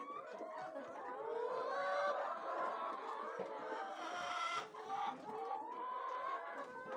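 A flock of chickens clucking, many birds calling over one another continuously.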